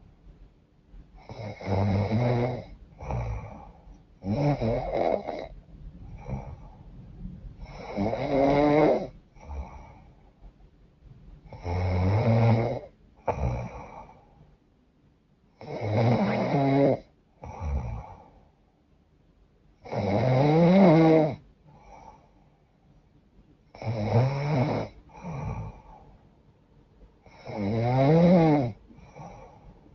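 A woman snoring loudly through a runny, congested nose. Eight rasping snores come about every four seconds, their pitch bending up and down, each followed by a shorter, fainter breath sound.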